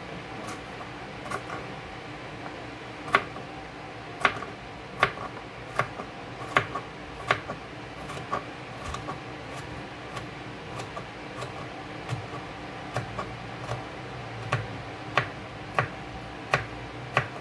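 Small kitchen knife dicing green pepper on a plastic cutting board: irregular sharp knocks of the blade against the board, about one or two a second, some much louder than others.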